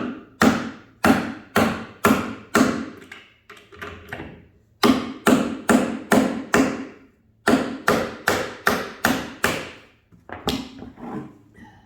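Hammer blows on a 1-7/16 in. axle socket used as a drift to knock out the outer tub bearing of an LG front-load washer: sharp metal strikes about two a second, in three or four runs with short pauses between.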